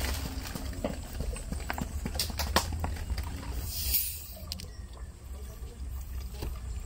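Coca-Cola poured from a plastic bottle into a large plastic jug partly filled with cola: irregular glugging clicks and splashes, a short fizzing hiss about four seconds in, then a quieter stream. A steady low rumble runs underneath.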